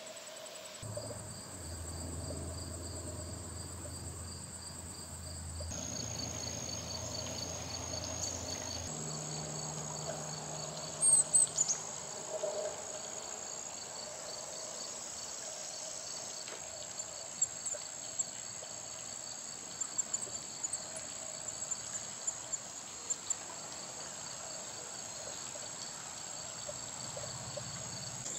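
Insects chirping in a steady high trill, with a faster pulsing chirp running alongside it. A few short, sharp sounds stand out, the loudest about eleven seconds in.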